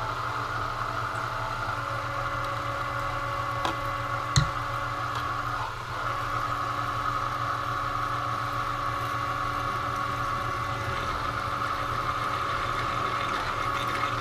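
Belt-driven drill press running at 210 RPM as a half-inch jobber drill cuts through hot-rolled steel flat bar: a steady machine hum with a constant high tone over it. A single sharp tick about four and a half seconds in.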